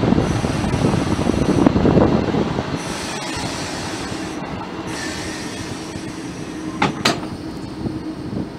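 ČD class 362 electric locomotive creeping up to a coach at walking pace, wheels rumbling and squealing over the rails with a steady hum. About seven seconds in, buffers and coupler meet in two sharp metallic clanks as it couples up.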